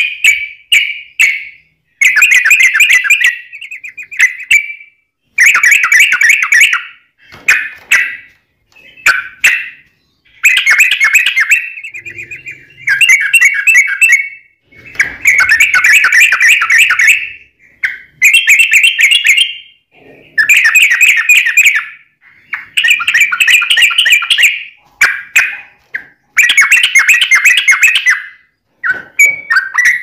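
Yellow-vented bulbul (trucukan) singing: loud, bubbling chattering phrases, each about one to two and a half seconds long, repeated over and over with short pauses between them.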